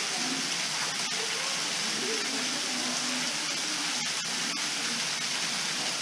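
Salmon Creek Falls, a thin low-season stream falling into a pool, making a steady rushing hiss of falling water.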